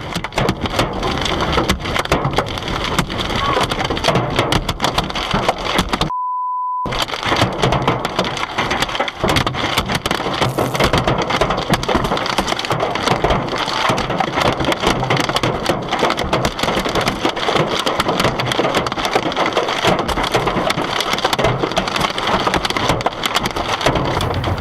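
Hailstones pelting a car in a dense, rapid clatter of hard impacts. About six seconds in, the clatter cuts out briefly for a single short beep.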